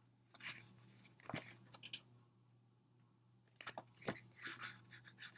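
Faint paper and plastic rustling with a few short crackles as an album's photo book and inclusions are handled.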